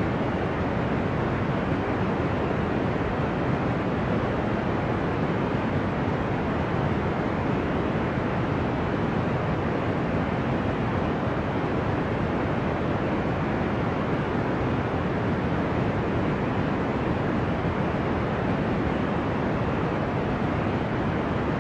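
Deep, ocean-like white noise: an even, unbroken rush, strongest in the lows, with no separate waves rising or falling.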